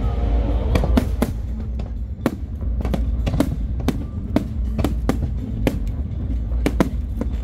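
Aerial firework shells bursting in quick succession: sharp bangs two or three times a second over a continuous low rumble.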